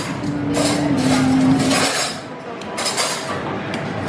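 A metal spoon clinking against a stainless steel pot and ceramic plates during plating, several separate light clinks, over a low steady hum that stops about two seconds in.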